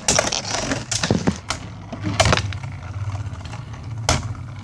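Beyblade spinning tops whirring and clacking against each other and the plastic stadium walls in a battle, with sharp hits several times in the first two seconds and another near the end.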